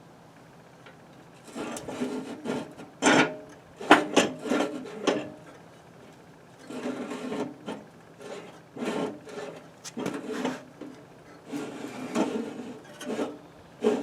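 Rusted blade and spindle of a Craftsman lawnmower deck turned by hand in fits and starts: metal scraping and rubbing, with a few sharp knocks about three to four seconds in. The spindle turns, though stiff from rust.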